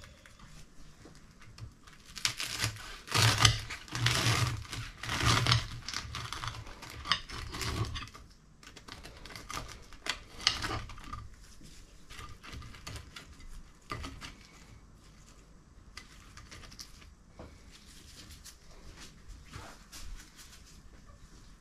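Knife sawing through the crisp fried batter crust of breakfast rolls: a run of crackling crunches, loudest a few seconds in, then scattered lighter crackles and clicks.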